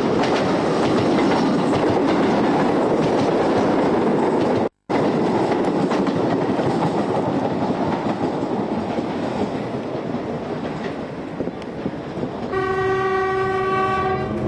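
Train running, a steady rumble and clatter of wheels on rail, with the sound cutting out for an instant about five seconds in. Near the end a horn sounds one steady note for about a second and a half, from the narrow-gauge diesel railcar as it runs toward a level crossing.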